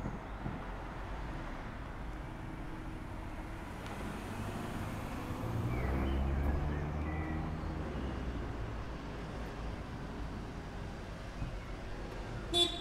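Street traffic rumble with a box van's engine swelling and rising in pitch around the middle as it pulls along the road. A brief sharp sound comes near the end.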